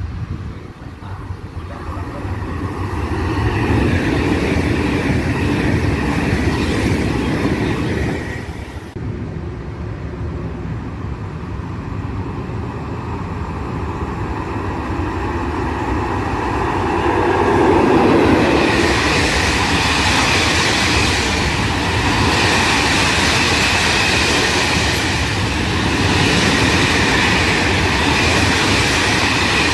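Electric trains passing through a station on the main line at speed: a continuous rumble of wheels on rail with a high steady whine, in two separate passes with a sudden break about nine seconds in.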